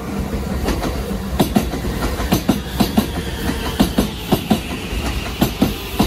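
Shin-Keisei Line electric commuter train rolling past close by, with a steady rumble. From about a second in, its wheels click over the rail joints in quick pairs, a few times a second.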